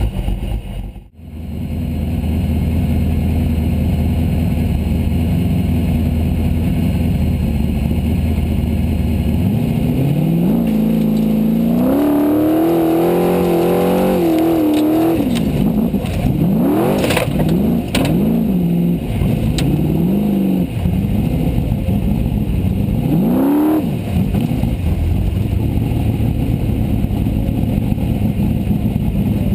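Formula Offroad buggy engine heard onboard: it runs at a steady low note, with a brief dropout about a second in. From about ten seconds in it revs hard, its pitch rising and falling again and again as the throttle is worked, and it picks up again near the end.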